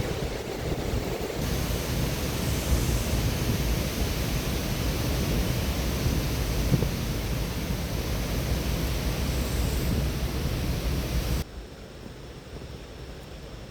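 Stormy sea surf with strong wind buffeting the microphone: a dense, steady rush with heavy low rumble. About eleven seconds in it drops suddenly to a much quieter hiss.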